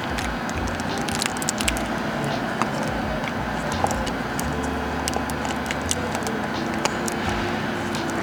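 Small clicks and light rustling of plastic parts being handled as an air quality sensor's internal assembly is fitted into its plastic cap, over a steady background noise.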